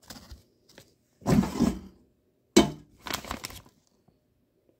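Frozen breaded chicken tenders being handled: the plastic bag rustling and the hard frozen pieces knocking into the air fryer basket, in a few separate bursts, one with a sharp knock a little past halfway.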